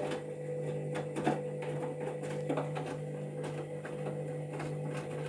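Candy front-loading washing machine filling with water for a pre-wash: a steady low hum with a higher tone above it, water running in, and a few faint ticks.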